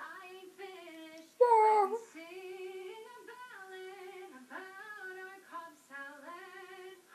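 A young girl singing a tune with no clear words, holding notes and stepping between them. About one and a half seconds in there is one loud, higher cry.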